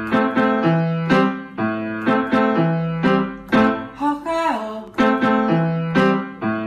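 Piano music with quick struck notes over a low bass note that returns every second or two, and one short falling pitch glide about four seconds in.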